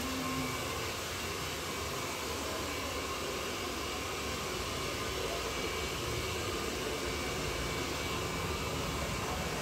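Steady, even rushing noise with a few faint high steady tones running through it, like a room's ventilation or machinery hum.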